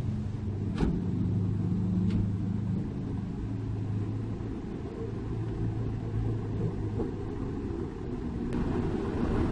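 Mitsubishi Fuso self-loader truck's diesel engine running steadily at low revs, a deep rumble. There are two sharp clicks, about one and two seconds in.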